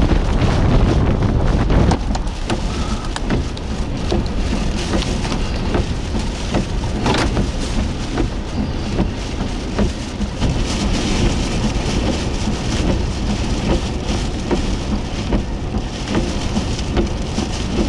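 Rain pattering on a moving car, heard from inside the car, over steady road and tyre noise. A heavy low wind rumble fills the first couple of seconds, then eases.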